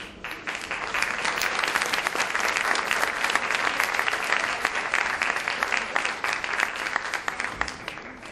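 Audience applauding: dense clapping from a large crowd that builds over the first second, holds steady, and fades out near the end.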